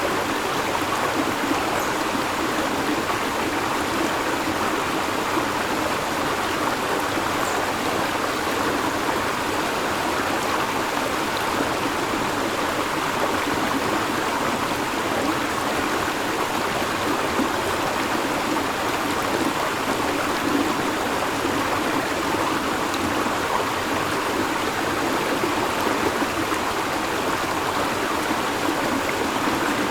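River water flowing steadily, an even, unbroken babbling with no breaks or changes.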